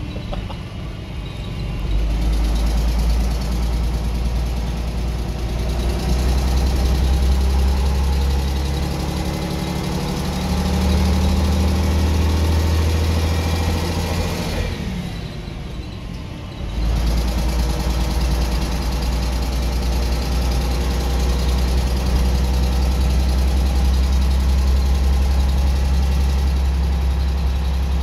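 Leyland National 2 bus's diesel engine working as the bus drives, heard from inside the saloon: a loud low drone that swells and eases several times, falls away for a couple of seconds about fifteen seconds in, then comes back suddenly and runs steady.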